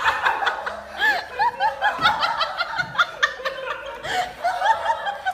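High-pitched laughter: a quick run of short rising-and-falling vocal bursts, several a second.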